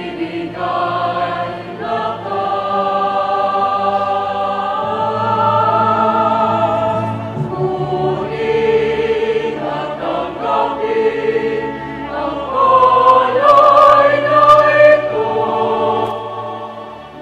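Background choral music: a choir singing long held notes over a low sustained line, swelling louder about two-thirds of the way through.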